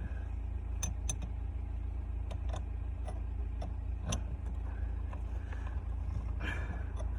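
A few light clicks and knocks as the gear knob is twisted and handled on the gear stick, over a steady low rumble.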